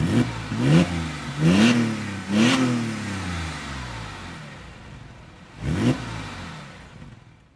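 Porsche 997 MKI Carrera flat-six with EVOX ValveTronic stainless mufflers, valves in the closed position, free-revving: four quick throttle blips, then idle, then one more blip near the end.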